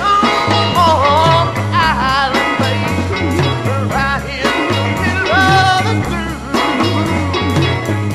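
1966 psychedelic rock song played by a band: a steady drum beat, a stepping bass line and wavering lead lines.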